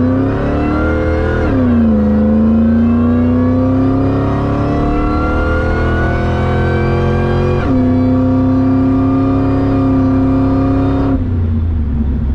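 2001 Ford SVT Lightning's supercharged 5.4-litre V8, with long-tube headers, at wide-open throttle on an acceleration run, heard from inside the cab. The engine note climbs in pitch, drops suddenly at two automatic upshifts (about a second and a half in, and near eight seconds), then cuts off about eleven seconds in as the throttle is lifted.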